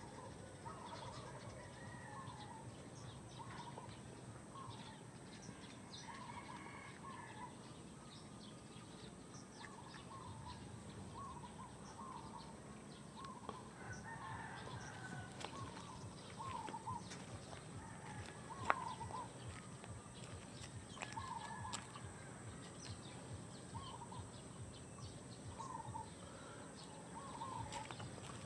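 Chickens clucking, short calls repeating about once a second, with scattered light clicks and one sharper click about two-thirds of the way through.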